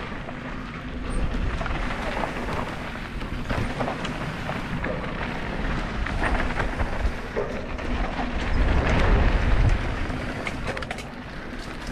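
Mountain bike being ridden on a dirt trail: tyres crackling over dirt and stones and the bike rattling over bumps, with wind rumbling on the microphone, loudest about nine seconds in.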